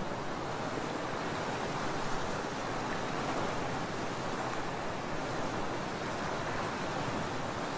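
Concrete Genie floor grinder running, its heads grinding an epoxy coating off a concrete floor: a steady, even rushing noise with no breaks.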